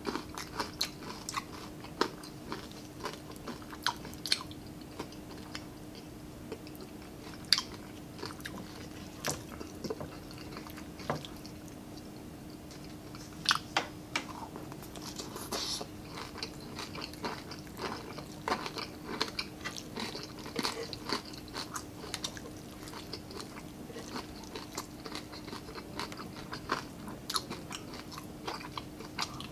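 A person chewing and biting fried pork, rice and stir-fried cabbage close to the microphone: irregular sharp crunches and mouth clicks, over a steady low hum.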